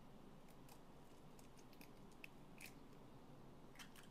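Near silence with a few faint, short clicks: a raw egg being cracked and its shell pulled apart over a bowl of chopped chicken filling.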